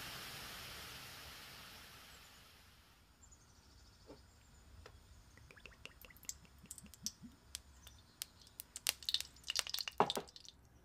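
A soft hiss fades away, then cooking oil is poured into an empty stainless-steel wok: small drips and ticks that grow into a quick run of louder clicks and a knock near the end.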